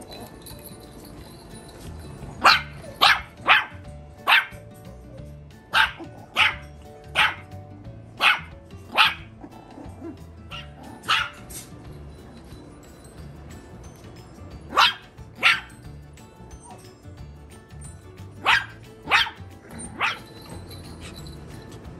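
Yorkshire terrier puppies barking: about fifteen short, sharp, high yaps, mostly in quick pairs and threes, with pauses between. Music plays faintly underneath.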